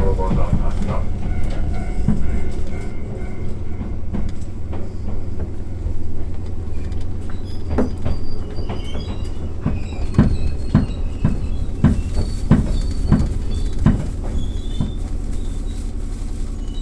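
Iyo Railway train running with a steady low rumble, its wheels clacking over rail joints in a run of evenly spaced clacks from about eight seconds in.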